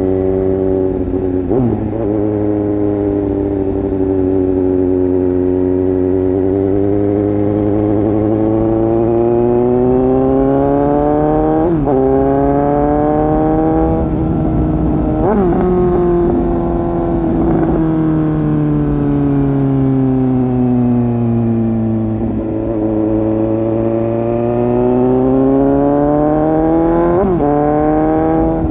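Suzuki GSX-S750 inline-four motorcycle engine heard through its exhaust with the dB killer removed, riding on the road. Its pitch climbs steadily under acceleration, breaks sharply at a few gear changes, and falls away during a stretch of slowing in the middle.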